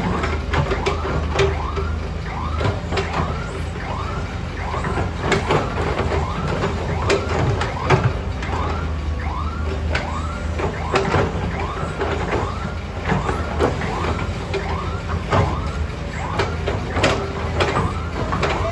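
Diesel engine of a mud-loading machine running steadily, with scattered knocks. Over it, a short rising-and-falling squeal repeats about twice a second.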